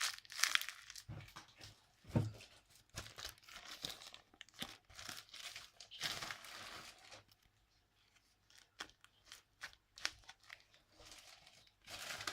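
Paper and plastic crinkling and crackling as a homemade paper squishy is squeezed and handled, in irregular bouts with a short lull about eight seconds in.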